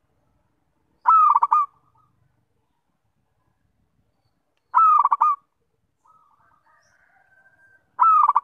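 Zebra dove (perkutut) singing: three short phrases of rapid, stuttering coos, about three and a half seconds apart. Faint, softer notes come between the second and third phrases.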